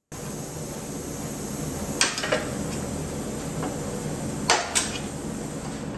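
Sharp metal clanks in two quick pairs, one about two seconds in and another about four and a half seconds in, over a steady background rush.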